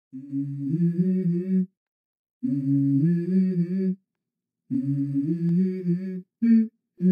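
Background music: a low, humming vocal-like melody in three short phrases separated by brief silences, with a short extra note near the end.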